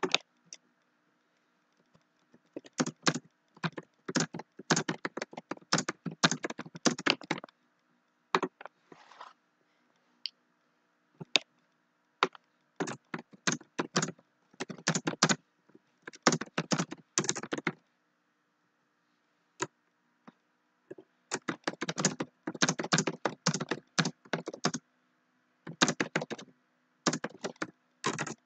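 Typing on a computer keyboard: rapid key clicks in four bursts of several seconds each, with short pauses between.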